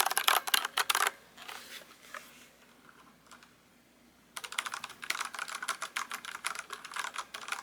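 Typing on a new mechanical keyboard with tactile brown switches: a quick run of key clicks for about a second, a lull, then steady typing again from about halfway through.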